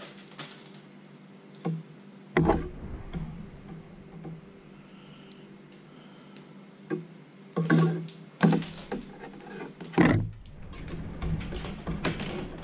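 Hands pulling a thick monofilament wind-on leader through a line loop: irregular rustling with several sharp clicks and slaps of the stiff line, over a steady low hum.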